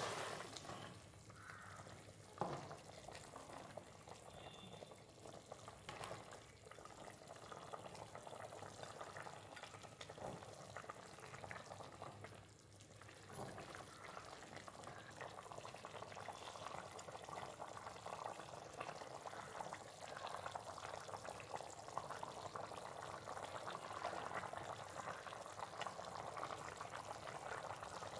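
Mutton curry in a karahi bubbling faintly at a simmer in its tomato and coconut-oil gravy, with a spatula stirring through it and now and then knocking against the pan.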